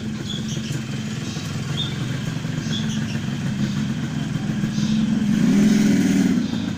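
A motorcycle engine runs close by, swelling and rising in pitch about five to six seconds in, then easing off. A few short high chirps from a young bird come through in the first three seconds.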